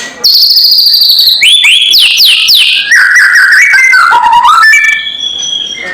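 White-rumped shama singing: a loud, varied run of whistled notes. It has high held tones, steep falling slurs, and about three seconds in a fast string of repeated short notes, dropping briefly to a lower note.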